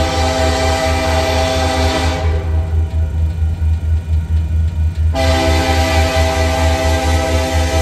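Diesel locomotive's air horn blowing two long chord blasts, the first ending about two seconds in and the next starting about five seconds in, as the train sounds for a grade crossing. A steady low diesel rumble runs beneath.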